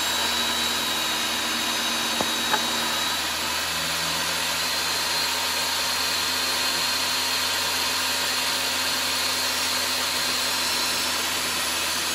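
Benchtop table saw running steadily with a high motor whine while a board is ripped lengthwise through the blade.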